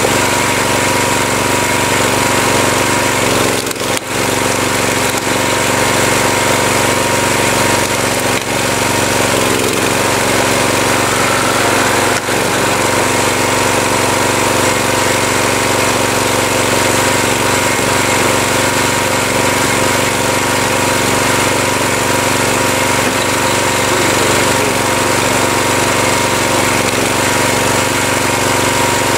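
Tractor engine running steadily, powering a tractor-mounted hydraulic log splitter, with a few brief knocks over the first half.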